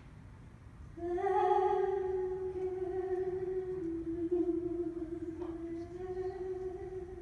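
A woman's voice holding one long sung note, starting about a second in and stepping slightly lower in pitch near the middle.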